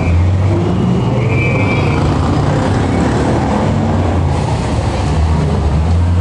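Inside a moving city bus: the engine running with a steady low hum over road and cabin noise.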